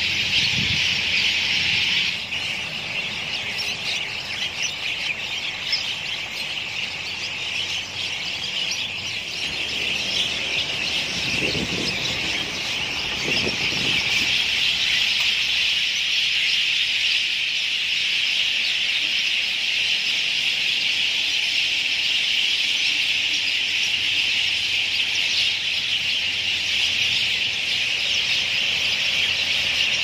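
A large flock of birds at their communal roost in trees, all calling at once: a dense, continuous, high-pitched chorus of chattering calls.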